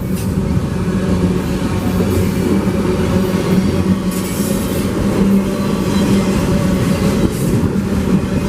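CPKC freight train cars rolling past close by: a steady rumble and clatter of steel wheels on the rails, with a brief high wheel squeal about four seconds in.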